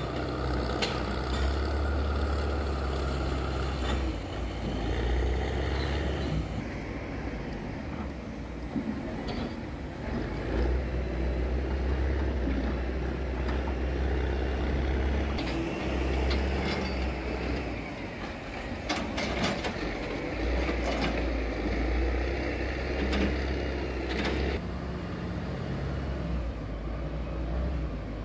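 Heavy diesel machinery running at a log yard: a steady low engine rumble, with several sharp knocks in the second half.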